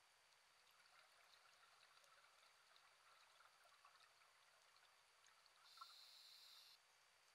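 Near silence: faint underwater ambience with scattered soft clicks, and a brief hiss that starts and stops abruptly near the end.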